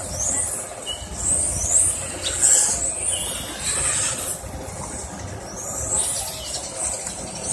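Electric 1:10 touring cars with 13.5T and 8.5T brushless motors racing past: high motor whines rise in pitch as the cars accelerate and drop as they brake, several times over, above a low background rumble.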